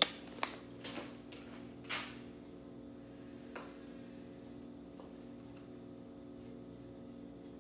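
Spice jars handled and shaken over a pot: a few light clicks and taps in the first few seconds, one slightly longer shake about two seconds in, over a steady faint hum.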